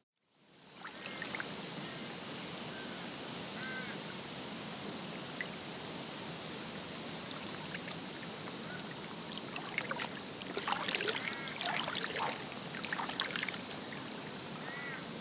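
Lakeside ambience: a steady background hiss of water and air, fading in after a brief silence, with a few short bird calls and a burst of louder, busier bird calls roughly two-thirds of the way through.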